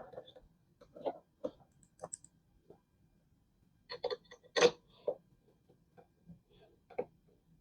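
Scattered light clicks and knocks of a Phillips screwdriver and a TV's stand legs being handled and screwed on, with a louder cluster of knocks about four and a half seconds in.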